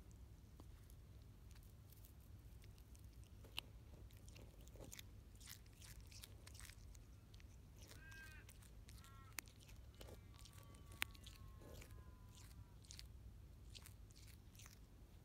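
Quokka chewing and biting off grass up close: faint, irregular crunching and clicking, with a few sharper snaps.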